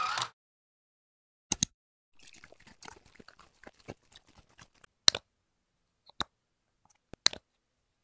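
Plastic flip-top cap of a toner bottle snapping open and shut: a handful of sharp clicks spaced a second or more apart, some in quick pairs. Between them come faint, soft crackly ticks.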